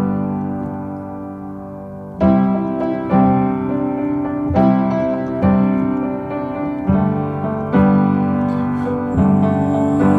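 Instrumental passage of a pop song: piano chords struck about once a second, each dying away before the next.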